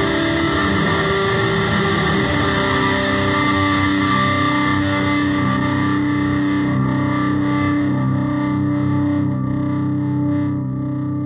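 Electric guitar, a 1984 Gibson SG, played through an Altergear boutique distortion pedal: a thick wall of held, distorted notes droning on. Fine high crackling stops about two seconds in, and the drone eases off slightly near the end.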